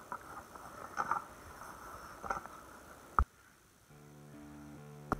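Water splashing and sloshing, with a few louder splashes. About three seconds in, a sharp click cuts it off, and music with long held notes begins soon after.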